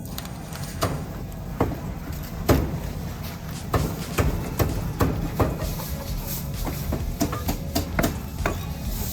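Cleaver chopping roast meat on a chopping board: a string of sharp, uneven chops banging on the board, the loudest about two and a half seconds in, over a steady low background rumble.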